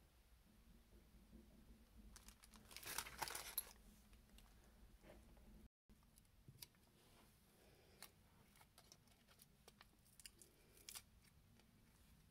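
Tissue paper crinkling for about a second, a few seconds in, then scattered faint clicks and taps as small glass mirror strips are picked up and pressed onto a rhinestone-covered box.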